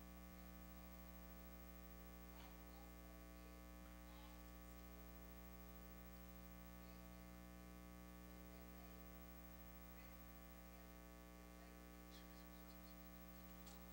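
Near silence: a steady electrical mains hum, with a few faint rustles of Bible pages being turned.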